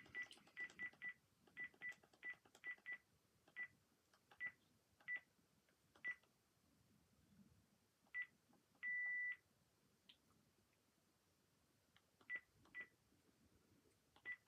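Cordless phone handset keypad beeps from a Panasonic KX-PRW120 as its keys are pressed to move through menus. The short single-pitch beeps come quickly at first, then further apart, with one longer beep about nine seconds in and two more short beeps near the end.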